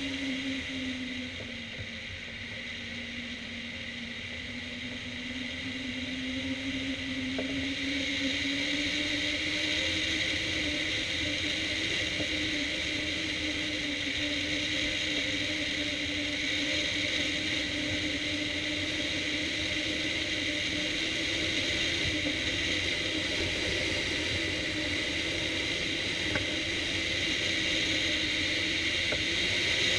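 Airflow rushing past a hang glider's wing-mounted camera in flight: a steady wind noise with a low hum that slowly sinks and rises in pitch as airspeed changes, plus a steadier high whistle. It grows louder over the first several seconds.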